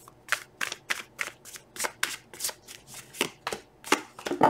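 A deck of tarot cards being shuffled by hand: quick, crisp card-on-card rasps, about four a second, in an uneven rhythm.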